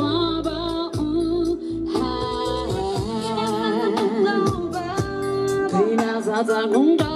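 A woman singing a Namibian Ma/Gaisa song into a microphone over backing music with a steady beat, heard through the stage PA speakers.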